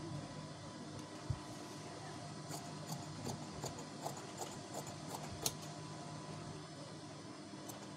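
Tailor's scissors snipping through blouse fabric on a cutting table: a quick run of short clicking cuts, about three a second. A low thump comes about a second in.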